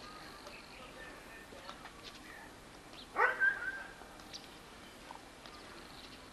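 A small dog barks twice in quick succession about three seconds in, a short pitched call that rises sharply and then levels off.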